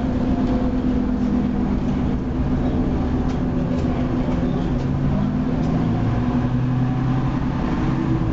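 Cummins L10 diesel engine of a Leyland Lynx Mk2 bus running under way, heard from inside the passenger saloon. It is a steady engine drone whose lower note drops a little over halfway through.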